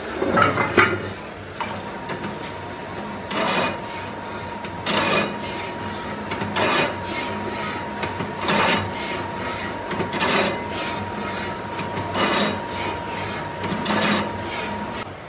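Pillar drill boring bolt holes through a cast iron truck brake drum: a steady thin whine from the running drill starts about one and a half seconds in, with a rasping cut swelling up about every second and a half to two seconds as the bit bites into the iron. It opens with a loud scrape of the heavy drum being shifted on the steel drill table.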